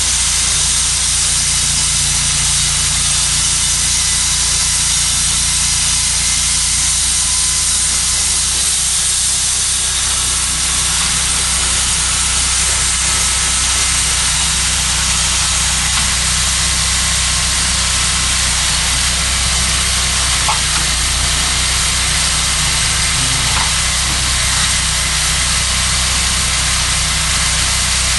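Cook's HD3238 portable band sawmill running: a steady engine drone under a loud, even hiss that holds unchanged throughout.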